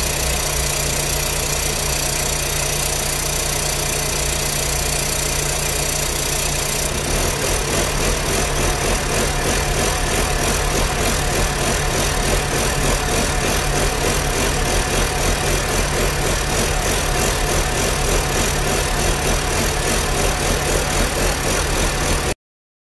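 Jeep engine idling with a vacuum hose pulled off. About seven seconds in, the idle turns uneven and surging, its level wavering, as the engine runs lean from the vacuum leak. The sound cuts off abruptly near the end.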